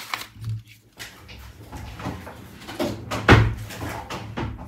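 Handling noise at a desk: a few light knocks and rustles, with one louder thump a little past halfway, as things around the camera set-up are moved.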